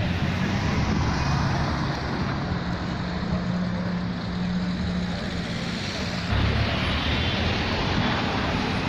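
Street traffic: car engines running nearby with a steady low hum, over a constant wash of road noise; a louder, lower engine rumble comes in about six seconds in.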